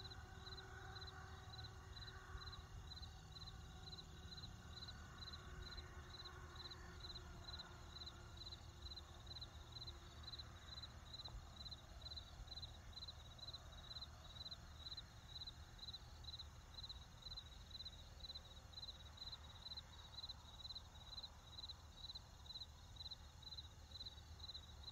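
Faint night-time ambience: a cricket chirping steadily about twice a second, high-pitched, over a low hum.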